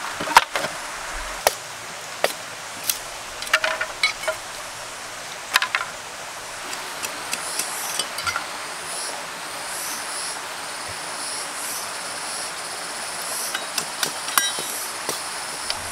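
A machete chopping and splitting green bamboo: sharp knocks, bunched in the first six seconds and a few more near the end, over the steady rush of a stream. From about seven seconds a high, repeating chirping runs along with it.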